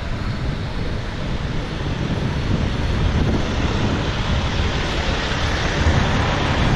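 Wind buffeting a moving camera's microphone while riding along a street: a steady low rushing with no engine note, getting a little louder about halfway through.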